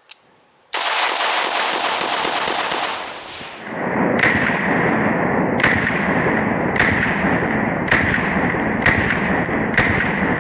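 AR-15 (16-inch mid-length, firing 55-grain ammo) with a Precision Armament AFAB Mini compensator, fired rapidly: about eight sharp shots in roughly two seconds. The string is then replayed slowed down, each shot stretched into a duller, drawn-out boom about a second apart.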